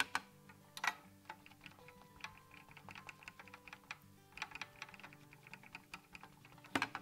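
Irregular runs of light plastic tapping: a Versamark ink pad being dabbed onto a clear stamp on a stamp press's acrylic platform, with louder bunches about a second in, around the middle and near the end.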